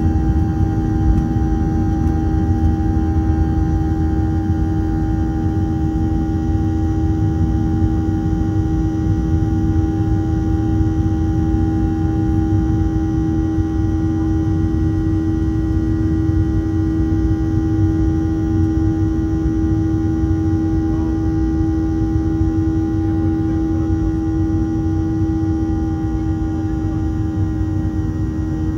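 Steady jet cabin noise inside a Boeing 737-700: a low rumble of airflow and CFM56-7B engines with a constant humming tone over it.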